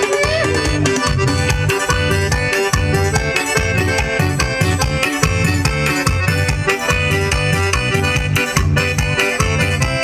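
Forró music played by a band, the accordion leading over a steady, repeating bass beat.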